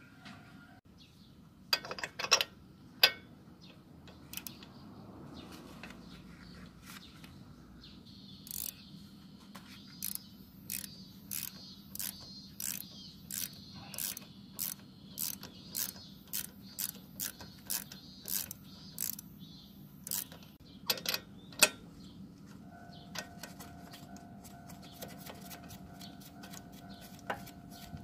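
Ratchet wrench with a spark-plug socket loosening a spark plug, clicking in short even strokes of about three every two seconds. A few sharp knocks come before, as the socket goes on, and a couple of clicks follow after the strokes.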